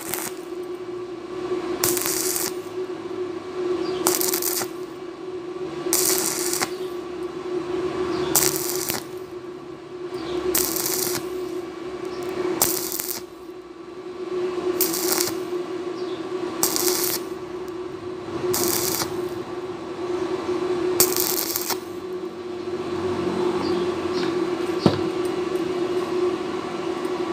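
Stick (arc) welding of thin 1.5 mm steel square tube in short stitches: the arc crackles in brief bursts about every two seconds, about ten times, then stops a few seconds before the end, over a steady hum. The start-stop stitching keeps the thin wall from burning through.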